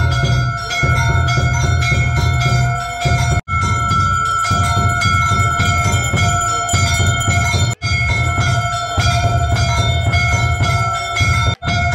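Temple bell rung fast and without pause during an arati, a continuous clanging ring of rapid strikes over a low rumble. The sound cuts out for an instant three times.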